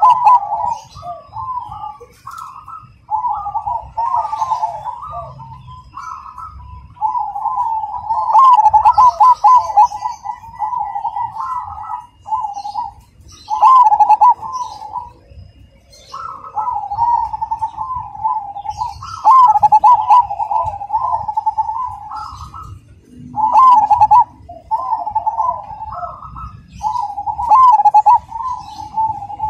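Zebra dove (perkutut) of the dark cemani variety cooing its rhythmic song: repeated phrases of rolling, warbling coos, each opening with a loud burst, every few seconds. Faint high chirps of small birds behind it.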